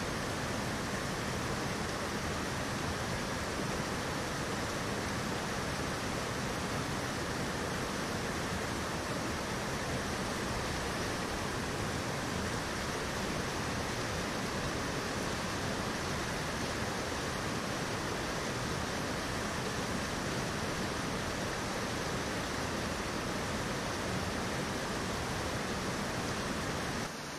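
Mountain torrent rushing over boulders in white-water rapids: a steady, unbroken rush of water.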